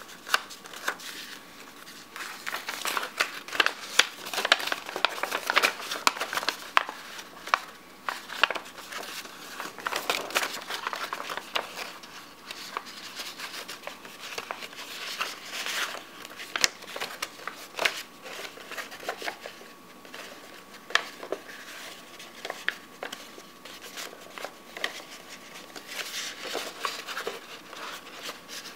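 A sheet of origami paper being folded and creased by hand: crinkling and rustling with sharp little creasing snaps, busiest in the first half.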